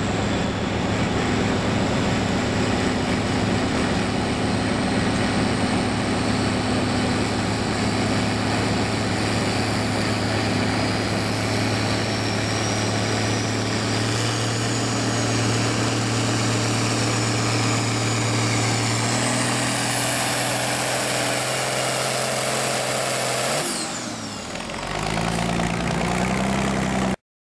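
Farm tractor engine pulling hard against a weight-transfer sled, a steady loaded note with a high whine climbing over it. About three-quarters of the way through the pull ends, the engine comes off load and the pitch drops, and the sound cuts off just before the end.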